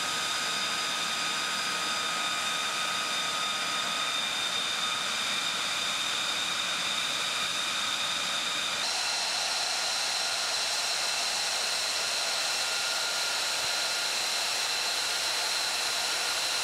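Jet engine running on the ramp: a steady rushing hiss with high whining tones. The tones shift to a different pitch about nine seconds in.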